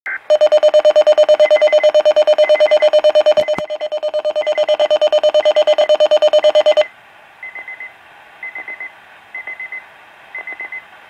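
Weather alert radio's alarm: a loud, fast-pulsing buzzer tone with groups of four short high beeps about once a second. The buzzer cuts off suddenly about seven seconds in, and the quieter four-beep groups carry on. Two sharp clicks come about three and a half seconds in.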